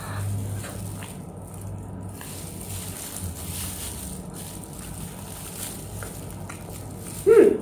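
Chewing a bite of a soft ice cream sandwich over a steady low hum. Near the end comes one short, loud voiced sound from the eater.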